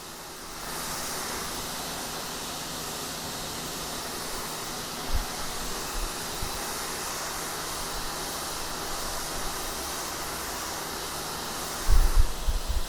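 Sun Joe SPX3000 electric pressure washer spraying concrete slabs through its 15-degree nozzle: a steady hissing water jet that gets louder about a second in, with a steady low hum under it. A few low thumps come near the end.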